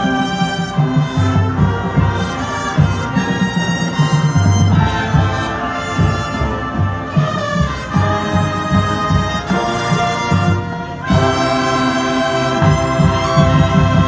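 High school marching band playing live: full brass chords over drum hits. A short break about eleven seconds in, then a loud held chord that cuts off at the very end.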